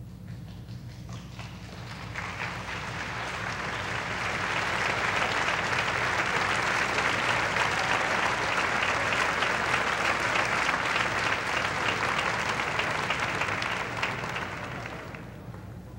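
Theatre audience applauding a dancer, building over the first few seconds, holding steady, then dying away near the end. A steady low hum runs underneath.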